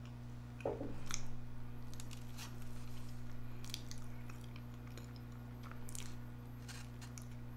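A person chewing and biting into a Hot Pocket, soft wet chewing with scattered small crunches. A steady low hum runs underneath.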